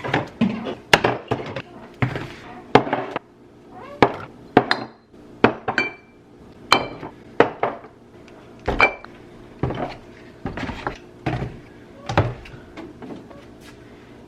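Food containers, jars and bottles being taken out of a packed fridge and set down on a counter: a steady run of irregular knocks and clinks, some with a brief ringing.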